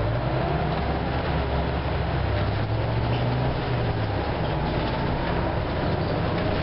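Orion V diesel city bus running under way, heard from inside the cabin: a steady low engine drone with a faint whine that rises in pitch over a few seconds.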